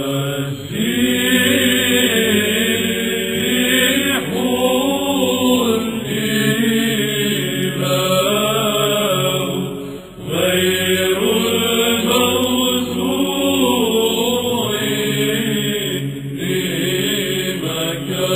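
Byzantine chant sung by a choir in Arabic: an ornamented melody over a steady held drone, pausing briefly about ten seconds in.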